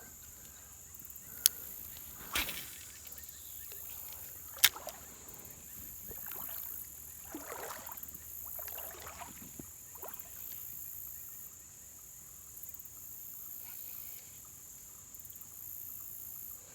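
Steady high-pitched drone of crickets with soft swishes of water moving around the legs of a person wading in a creek, and two sharp clicks, one early and one about a third of the way in.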